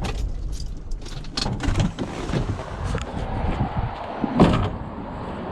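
Scrap metal being handled and loaded: a few hollow clunks and knocks, the loudest about four and a half seconds in, over a low background rumble.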